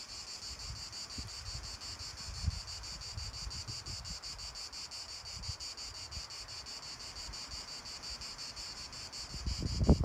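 Steady, high chirring of summer insects, pulsing rapidly and evenly. Wind buffets the microphone underneath, with a stronger gust near the end.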